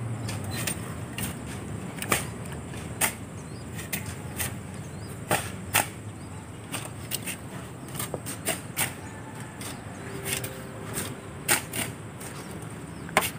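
Shovel and hoe digging wet river sand and loading it into a pickup bed: irregular sharp scrapes and knocks, about one or two a second. A low hum fades out in the first couple of seconds.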